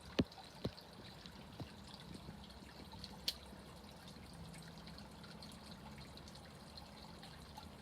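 Fountain water trickling and splashing steadily, with a few sharp clicks in the first few seconds, the loudest just after the start.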